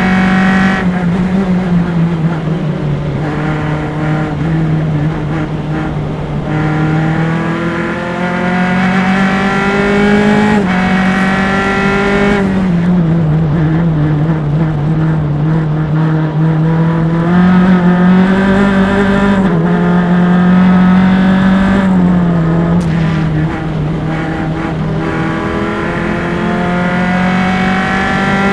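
Single-seater race car engine at racing speed, heard close through on-car engine microphones. The pitch climbs and drops with each gear change, with a run of downshifts about ten to thirteen seconds in.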